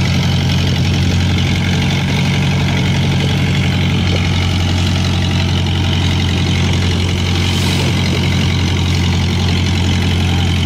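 Fishing boat's engine running steadily, a constant low hum that does not change in pitch or level.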